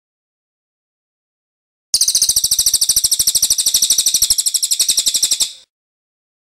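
Recorded songbird call: a fast, even, high-pitched rattle of about a dozen notes a second, starting about two seconds in and lasting about three and a half seconds before it stops.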